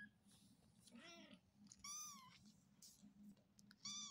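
Persian kitten meowing: three short high-pitched calls, the second and third higher than the first.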